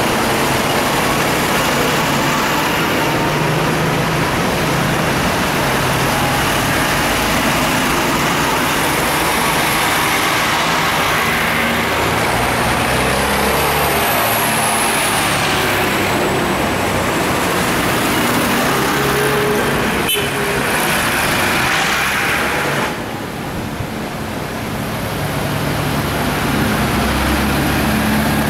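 A procession of tractors driving past one after another, their diesel engines running loudly and the engine note changing as each one passes. It goes briefly quieter about 23 seconds in, then rises again as the next tractor comes up.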